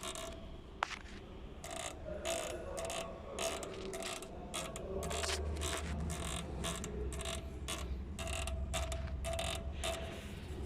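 Dry ball joint of a Skoda Octavia's ride-height sensor link rod creaking and squeaking over and over as the linkage is worked, about one or two squeaks a second. It is the creak the car makes over bumps, and it needs greasing. A low hum joins about halfway through.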